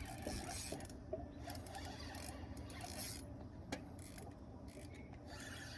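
Fishing reel being cranked, its gears whirring and rubbing steadily while a lure is worked back in, with a single click about four seconds in.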